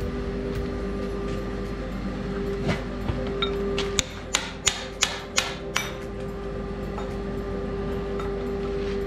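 About eleven quick hammer blows, roughly three a second, on a caulking tool driving lead into the gap between the anvil's foot and its steel tray, which is done to deaden the anvil's ring. They start a little under three seconds in and stop about three seconds later, over a steady workshop machine hum.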